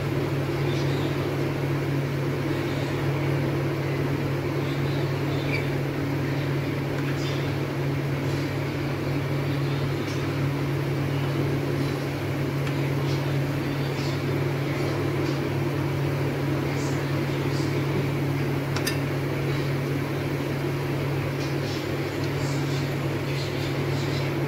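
Bhallas (urad-dal dumplings) deep-frying in hot oil in a small frying pan: a soft sizzle with scattered faint crackles and pops, under a steady low mechanical hum.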